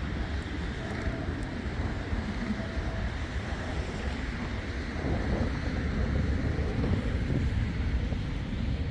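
Wind buffeting the microphone, a steady low rumble with no distinct events.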